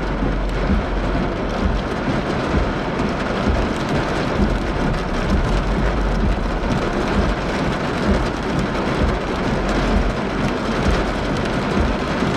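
Heavy rain pelting a moving car's roof and windshield, heard from inside the cabin as a dense patter of fine ticks. A low rumble swells and fades underneath.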